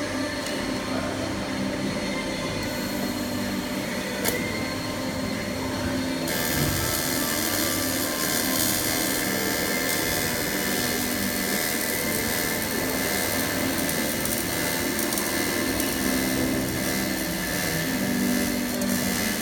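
AC TIG welding arc on aluminium: a steady buzzing hiss over a low hum, which turns brighter and a little louder about six seconds in.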